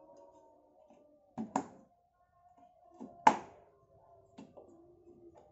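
Stainless steel dish rack knocking against the cabinet as it is pushed and seated into a drawer: three pairs of sharp clacks about a second and a half apart, with a short metallic ring, the middle pair the loudest.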